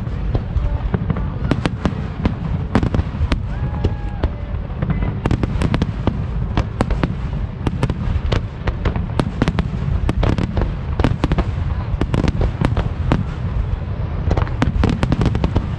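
Aerial fireworks display: a dense, continuous run of bangs and crackles as shells burst overhead, over a steady low rumble.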